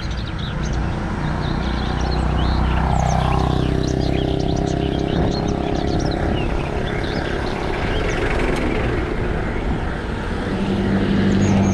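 Steady rumble of tyres rolling on a road, with a motor's hum swelling about a second in and fading after several seconds, and another starting near the end. Many small birds chirp throughout.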